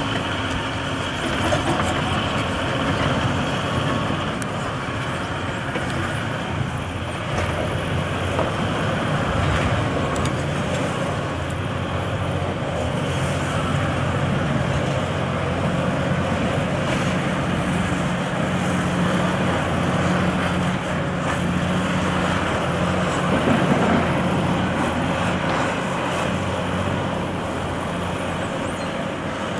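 Diesel engines of demolition excavators, a Caterpillar and a smaller tracked machine, running steadily under load, with a few light knocks.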